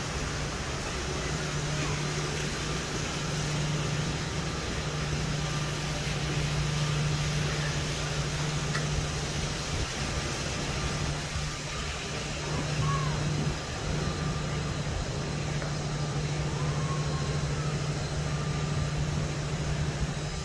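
Steady low machine hum over an even rushing background noise, with a few faint short whistling glides.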